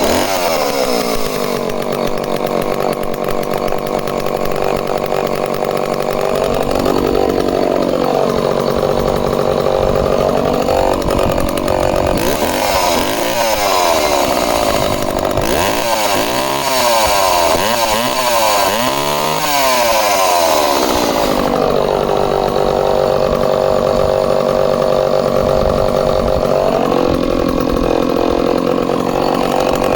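Echo 452 two-stroke chainsaw, just started on choke. It runs high for about a second, then settles to a steady idle and is revved once. From about twelve to twenty-one seconds in it is blipped up and down rapidly, then drops back to idle with one more short rev near the end.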